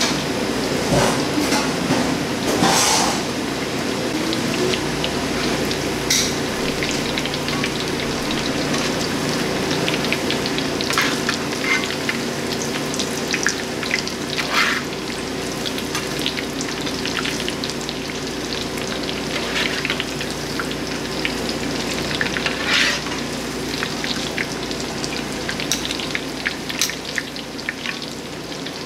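Coated lobster bites deep-frying in hot oil: a steady sizzle full of small crackles and pops.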